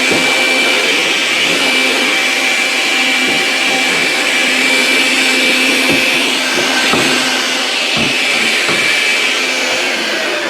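A small electric motor running steadily with a high whine, switched off at the end as its pitch starts to drop.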